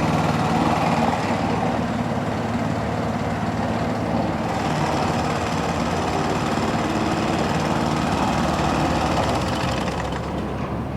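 A Partner self-propelled lawnmower's 5 horsepower petrol engine running steadily, getting slightly quieter near the end.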